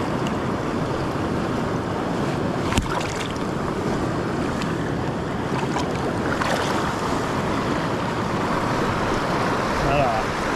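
A fast mountain creek running high: a steady rush of flowing water, with one sharp click about three seconds in.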